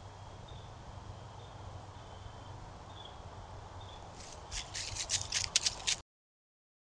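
Trail-camera audio of woods: a low steady hiss with faint high chirps about twice a second. About four seconds in comes a quick run of sharp crunching rustles in dry leaves, about nine strokes, which cut off abruptly as the recording ends.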